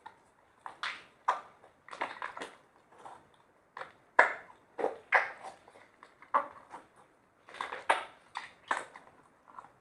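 Slime being mixed, giving off irregular sticky clicks and pops, a couple a second, with a few louder snaps about four seconds in and near the end.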